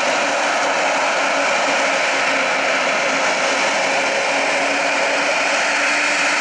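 Airbus A380's jet engines running at low power as the airliner taxis: a steady rushing whine with several held tones in it.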